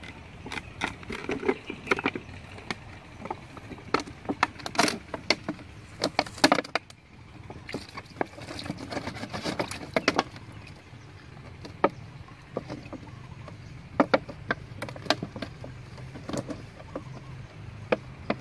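Clear plastic bottles crinkling and clicking in the hands as they are squeezed and shaken to tip small catfish out. The sound comes as irregular runs of sharp crackles with short pauses between them.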